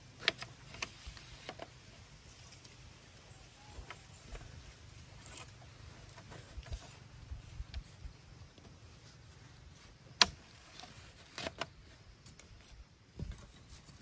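Thin split-bamboo strips clicking and rustling as they are woven by hand into a mat, with scattered sharp taps, the loudest about ten seconds in.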